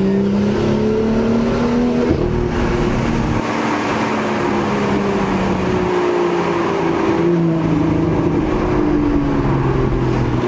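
BMW M2's N55 turbocharged straight-six heard from inside the cabin, pulling with rising revs, then a gear change about two seconds in, after which the engine note eases off and slowly falls as the car slows, over steady road noise.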